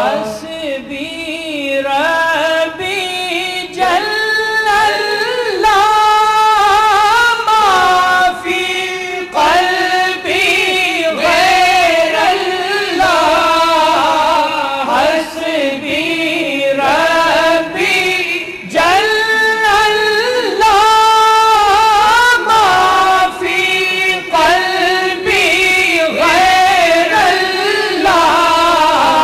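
Devotional naat singing: a voice draws out long, wavering melismatic notes with few clear words, over a steady held tone underneath.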